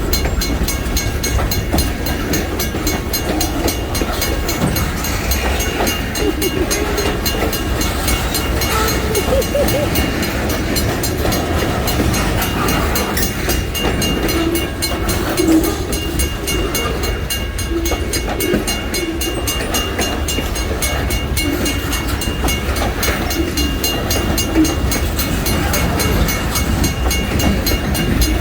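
Freight train cars rolling steadily past at close range, steel wheels clicking over the rail joints with continuous rumble and rattle.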